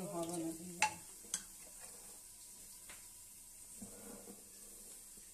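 A metal ladle stirring in a steel cooking pot, knocking sharply against the rim three times in the first three seconds.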